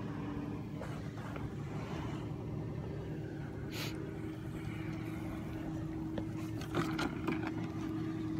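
Steady low drone of a boat engine on the water, with a few light knocks.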